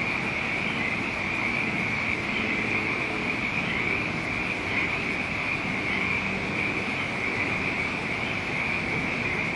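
A continuous shrill chorus of calling animals, frogs or insects, forming one steady high-pitched drone without breaks, over a low rumble of wind noise.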